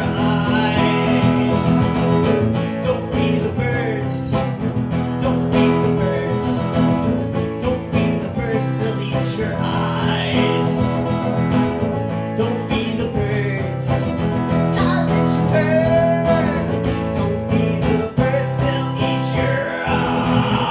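Acoustic guitar strummed in a steady rhythm during a live solo song performance.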